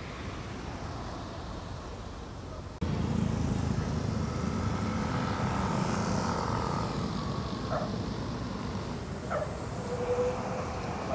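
Street traffic: about three seconds in the sound jumps to a louder, steady low rumble of passing vehicles, including a motorcycle going by. A few short high chirps come near the end.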